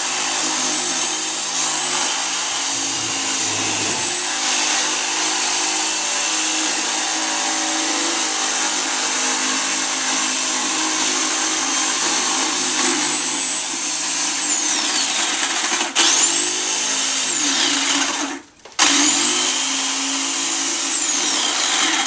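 Black & Decker jigsaw running, cutting through a thick pumpkin rind, with a steady high whine. In the last seven seconds it is let off and started again, its whine falling away three times.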